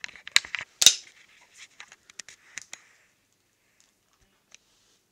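Sharp clicks and crackles of plastic as a small drink bottle's orange cap is handled and worked open. The two loudest clicks come within the first second, with smaller ones over the next two seconds before it goes nearly quiet.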